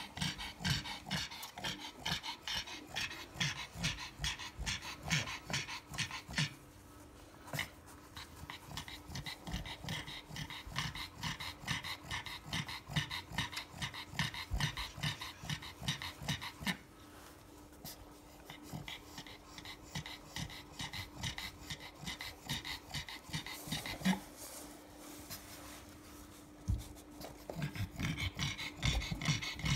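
Black pug panting rapidly with its tongue out, a few breaths a second in long runs broken by short lulls. The pug is heavily pregnant and in whelping, and this is the hard panting of a bitch in labour.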